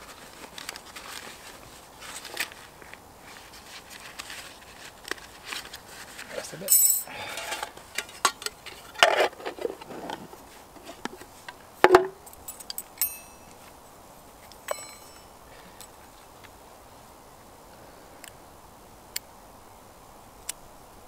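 Camp cooking gear being handled: a metal mess tin opened and a folding metal stove stand unfolded, with clinks and rattles of thin metal. There is one sharp ringing knock about halfway through, then only a few small ticks.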